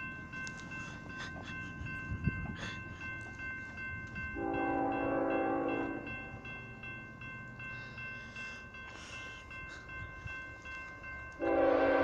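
Railroad crossing bell ringing steadily while an approaching Union Pacific freight locomotive sounds its horn: one blast of about a second and a half about four seconds in, then a louder, continuing blast near the end.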